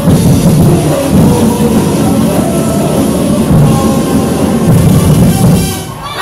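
Loud music with heavy drums, easing off briefly just before the end.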